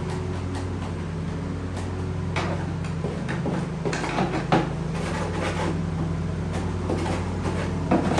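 Irregular scraping and knocking of hand tools clearing packed grass from under a lawnmower deck, loudest about four and a half seconds in and near the end, over a steady low mechanical hum.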